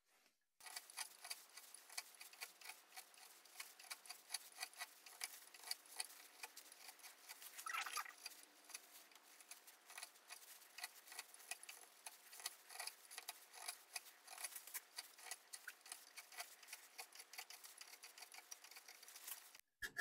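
Hand carving tool cutting texture into the side of a cherry bowl: a fast, irregular run of faint ticks and small scrapes as the blade nicks the wood, a little louder about eight seconds in.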